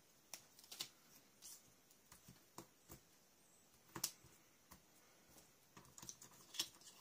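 Faint, irregular clicks and light taps of small craft supplies being picked up and set down on a cutting mat. The sharpest tap comes about four seconds in, with a small cluster near the end.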